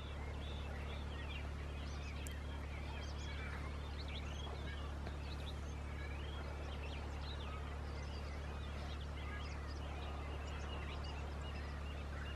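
A dawn chorus of birds: many short chirps and warbling calls overlapping, over a steady low hum.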